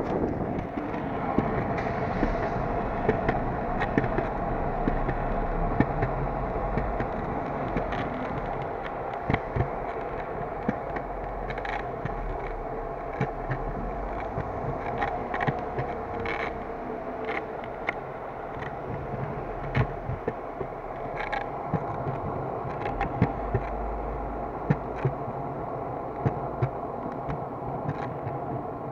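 Longboard's urethane wheels rolling over a smooth painted concrete floor, heard from a camera mounted on the board: a steady rolling hum with many short, sharp clicks and knocks scattered through it.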